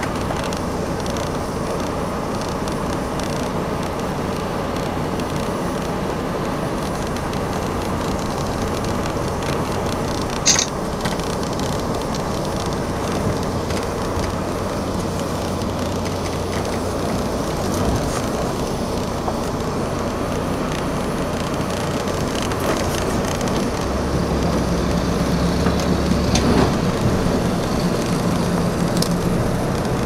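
Engines of a river car ferry running steadily: a low drone that shifts in pitch about three-quarters of the way through, with water churning at the pontoon's edge.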